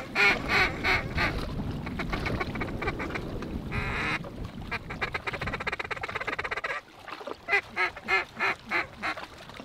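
Mallard duck call blown in loud runs of quacks to bring down a high flock of migrating mallards: a quick run at the start, a short burst about four seconds in, and a string of about six quacks near the end. Low wind rumble under the first half.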